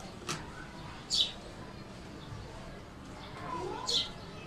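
Two short, high bird chirps about three seconds apart, over faint rustling of cloth being handled.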